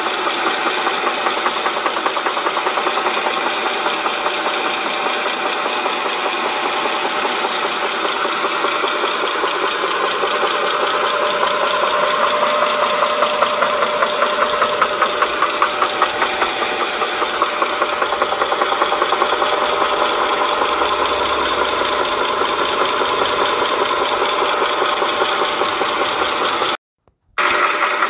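2007 Dodge Charger 2.7 L V6 engine running with a steady, rapid knocking and rattling, which the owner takes for a broken timing chain guide or tensioner letting the chain slap. The sound cuts out briefly about a second before the end.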